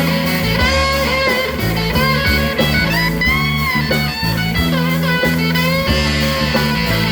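Live rock band playing with no vocals: an electric guitar lead with bent notes over bass and drums.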